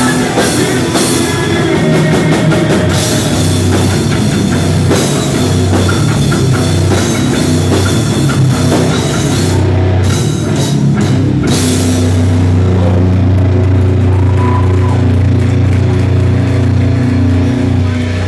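Heavy rock music with a full drum kit and guitar. About twelve seconds in the drum hits stop and a low sustained chord rings on, its top end fading out.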